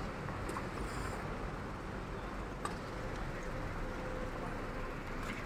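Steady low hum of traffic and idling cars, with a few faint clicks.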